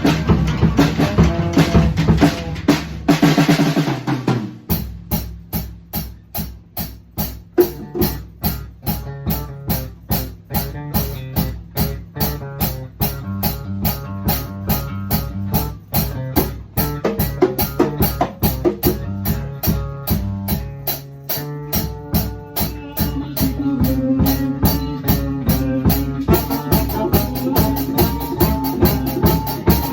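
Live band playing with a drum kit keeping a steady beat over bass guitar. The fuller band sound drops away about four seconds in, leaving mostly drums and bass, and a held note comes back in over them in the last third.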